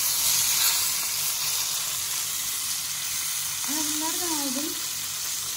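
Whole fish sizzling as they pan-fry in hot margarine over high heat, with a spatula nudging them in the pan. The sizzle is a steady, even hiss.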